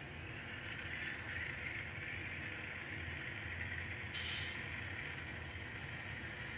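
N scale model locomotive running slowly while shoving freight cars back along the track: a steady hum and hiss from the motor and wheels on the rails, with a short click about four seconds in.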